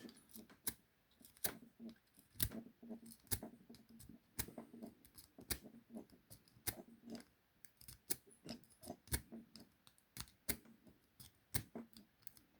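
Lock pick being zipped repeatedly through the keyway of a 40 mm laminated padlock: sharp, faint metallic clicks, irregular at about one or two a second, as the pick snaps over the pins, with light handling rustle between.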